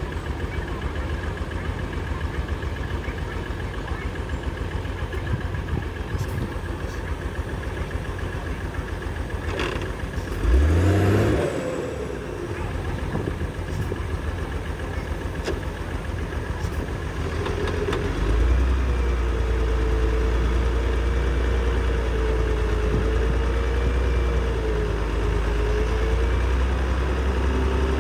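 Heavy diesel engine of earthmoving machinery running steadily, revving up briefly about ten seconds in, then running louder from about two-thirds of the way through with a wavering whine over it.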